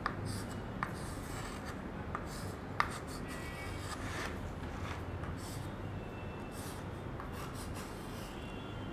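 Chalk scratching on a small slate as numbers are written, in short irregular strokes with a few sharp taps.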